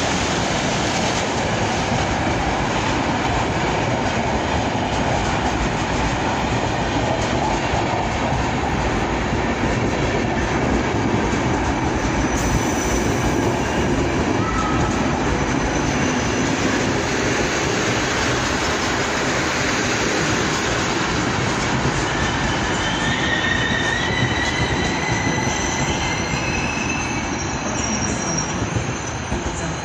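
Locomotive-hauled passenger coaches rolling past close by, a steady heavy rumble of wheels on rails. In the last third, high squeals from the wheels and brakes come and go as the train slows to a stop.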